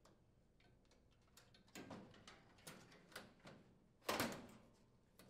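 Stainless steel control panel of a gas range being slid and seated onto its front brackets: faint metal scrapes and light knocks, the loudest a scrape about four seconds in.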